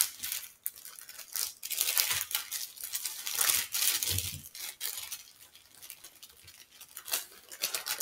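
Paper wrapper of a sterile glove packet rustling and crinkling as it is peeled open and unfolded by hand. The rustles are irregular and thin out in the middle, with a soft thump about four seconds in.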